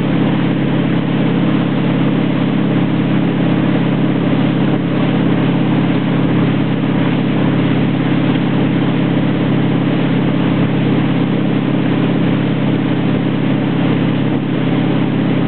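Ski boat's engine running steadily under way, towing a surfer, with the rush of water from the churning wake behind the boat.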